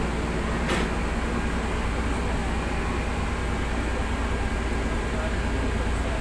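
City bus running, heard from inside its cabin: a steady low rumble of drive and road noise. There is a brief click about a second in.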